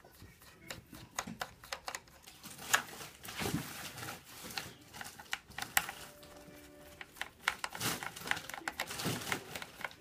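Small screwdriver turning out screws in the plastic underside of a Dell Precision laptop: irregular clicks and scrapes of the bit in the screw heads, with light handling of the case.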